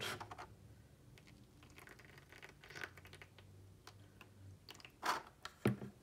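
Faint low hum of a mini beauty-blender washing machine's motor, which stops about four and a half seconds in, under light scraping and crackling as the plastic drain hose and tray are handled to drain water out.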